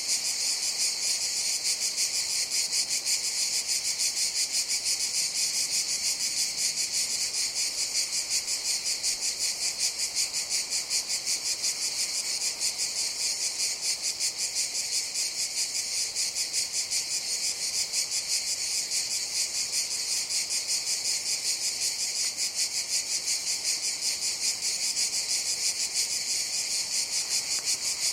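Cicadas singing in a dense chorus: a shrill, high, continuous buzz with a fast, even pulsing.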